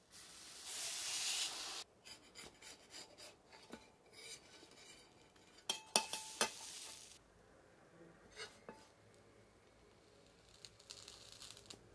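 Batter-dipped slice of bread sizzling loudly as it is laid on a hot iron griddle, the sizzle stopping abruptly after about two seconds. Then metal spatulas scrape and clink against the griddle as the bread is pressed and turned, with a few sharp metallic clinks about halfway through and a faint sizzle again near the end.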